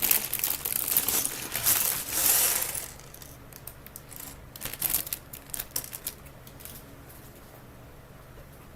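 LEGO pieces tipped out of their plastic bag, rustling and clattering for about three seconds, then a few light clicks of plastic bricks being moved about.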